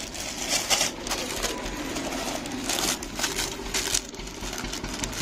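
Crinkling and rustling of packaged suits and cloth being handled, in several short bursts about a second apart.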